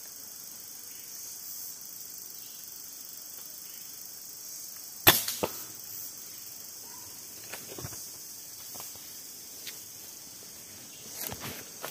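A PCP air rifle fires once about five seconds in: a single sharp crack, with a smaller knock a moment later. A few lighter clicks and knocks follow.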